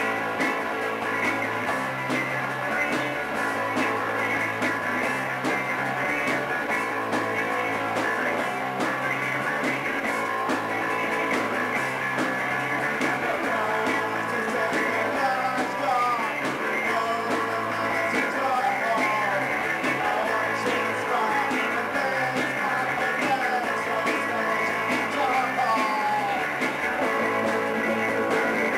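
Live rock band playing at a steady level: electric guitars, electric bass and drum kit, with a man singing.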